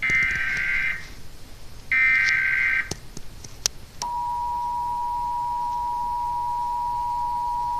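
Emergency Alert System test: two SAME digital header bursts, each about a second long and two seconds apart, then the steady two-tone EAS attention signal starts about four seconds in and holds.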